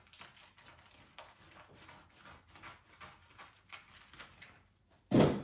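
Scissors cutting through plastic vacuum-sealer bag film from a roll: a run of faint snips and crinkles, then a louder thump near the end.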